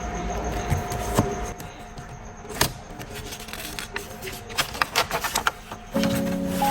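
Handling noises: a scatter of sharp clicks and taps, a single one and then a quick cluster. Background music with sustained chords begins about six seconds in.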